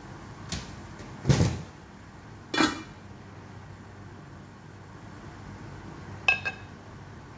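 Kitchen clatter as a stainless-steel lid is put on a cooking pot: a heavy thump, then a ringing metal clank about a second later. Near the end come two quick ringing metal clinks.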